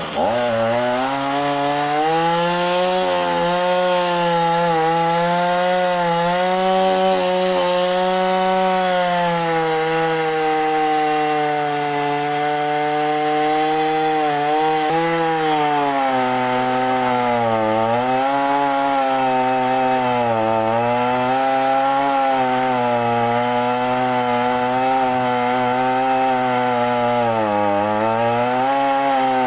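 Stihl MS 210 two-stroke chainsaw revving up to full throttle and cutting into a tree trunk. From about halfway on, its pitch dips and recovers again and again as the chain loads up in the wood.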